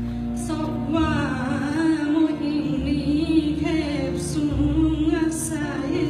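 A woman singing with vibrato, accompanied live by a small acoustic band of double bass, acoustic guitars and cello, with low bass notes changing every second or two.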